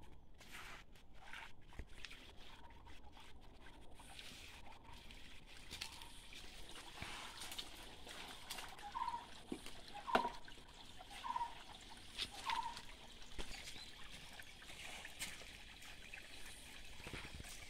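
Shallow rocky stream trickling, with scattered clicks and knocks. Four short squeaks come about a second apart near the middle.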